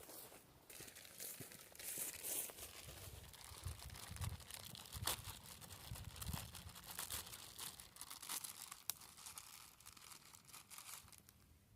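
Irregular crinkling and tearing, with a few sharp snaps, of dry material being handled.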